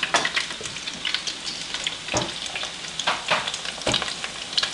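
Dough rings (pontshkes, Hanukkah doughnuts) deep-frying in a pan of hot oil: steady sizzling full of small crackles, with scattered louder pops.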